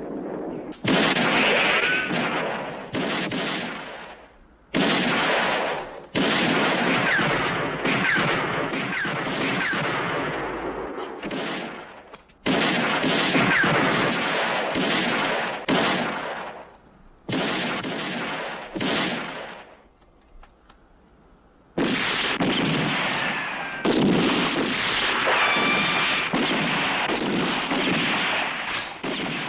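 Western-movie shootout gunfire: many gunshots in quick succession, each with a long echoing tail, with a short lull about two-thirds of the way through.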